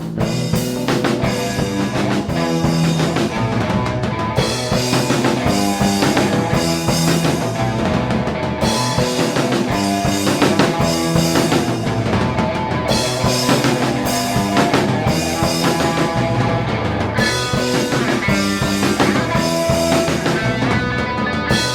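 Rock band playing, with drum kit and guitars, a phrase that repeats about every four seconds.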